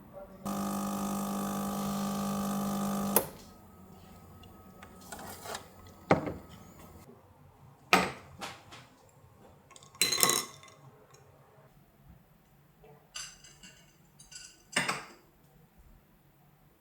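A microwave oven runs with a steady hum for a few seconds and stops sharply. Then come scattered clinks and knocks of dishes and utensils being handled, with a short rustling burst midway.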